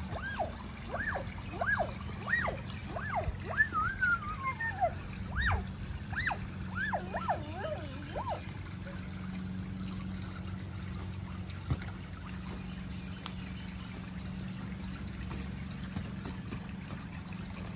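Water from a garden hose spraying out of an inflatable whale paddling pool's spout and splashing steadily into the pool. During the first half, a run of short, high, arching chirps, about two a second, sounds over the water.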